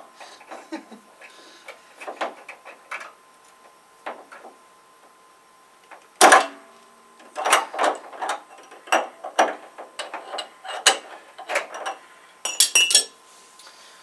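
Metal hand tools clinking and knocking against each other and the tank while a heating element is worked loose from an electric water heater: scattered clicks and knocks, a sharp knock about six seconds in, and a quick run of ringing metallic clinks near the end.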